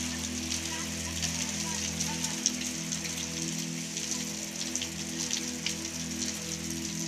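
Hail and heavy rain falling on a wet cement courtyard: a steady hiss of rain with a dense, irregular patter of small ice pellets ticking on the ground.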